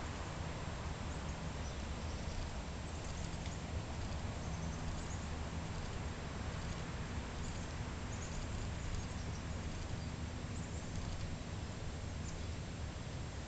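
Outdoor background noise with a steady low hum and scattered faint bird chirps.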